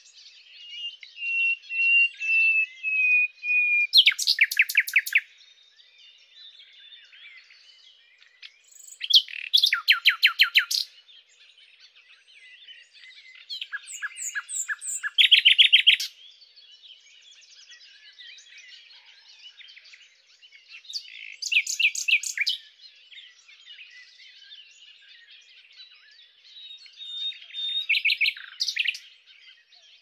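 Common nightingale singing in separate phrases a few seconds apart, each mixing clear whistled notes with fast, loud runs of repeated rattling notes. The first phrase opens with a string of pure whistles slowly falling in pitch, and a later one swells in a crescendo before breaking into a rapid trill. Faint twittering fills the gaps between phrases.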